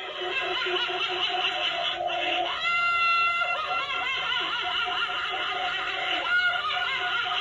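A Halloween animatronic's recorded soundtrack: layered creepy laughter and shrieking voices. A rising shriek is held high about two and a half seconds in, and a shorter one comes near the end.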